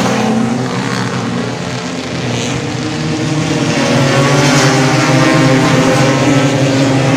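Tuned two-stroke Vespa racing scooter engine running steadily. The sound dips a little about two seconds in, then climbs and holds.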